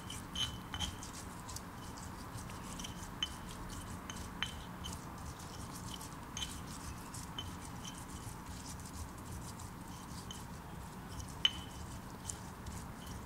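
Stone pestle grinding raw chili sambal in a stone mortar (ulekan and cobek): a faint wet crushing with scattered sharp clicks of stone against stone.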